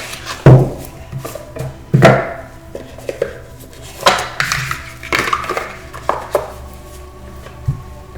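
Irregular sharp taps and knocks of hard objects being handled on a tabletop, over soft background music. The loudest knocks come about half a second and two seconds in.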